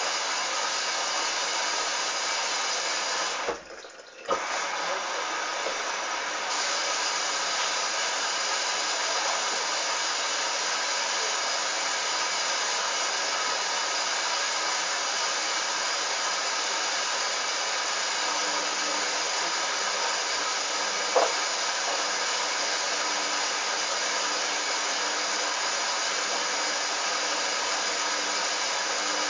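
Hoover Dynamic washing machine running with a steady rushing noise. The noise dips briefly about four seconds in, and there is a single short tick later on.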